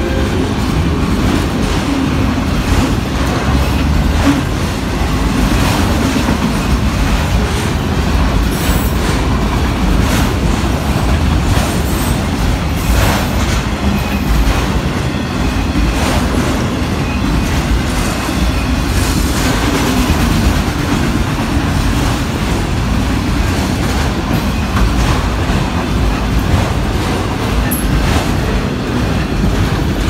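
Autorack freight cars of a manifest train rolling past: a steady loud rumble and clatter of steel wheels on the rail, with a few brief high screeches along the way.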